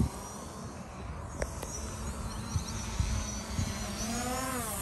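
DJI Mavic quadcopter drone hovering over the field, its propellers making a steady, insect-like buzzing hum.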